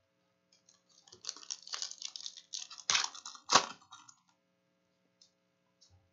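Foil trading card pack being crinkled and torn open: a rustling crackle for about three seconds with two sharper snaps near the middle.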